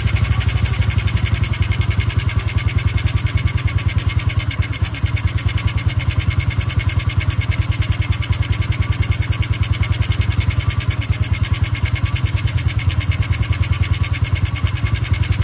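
Honda Dash motorcycle engine idling steadily as the carburettor's adjusting screw is turned with a screwdriver to set the idle after an overhaul.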